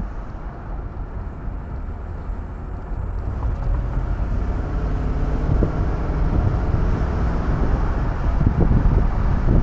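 Mercedes M119 5.0-litre V8 in an SL500 R129, heard from the cabin while driving, together with road and wind noise. The engine note grows louder from about three seconds in as the car picks up speed. The engine is running with freshly replaced distributor caps.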